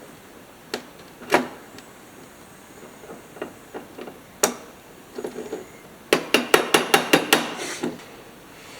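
Light metal tapping on a carburetor float assembly as a new float pin is fitted: a few separate clicks, then a quick run of about nine taps near the end.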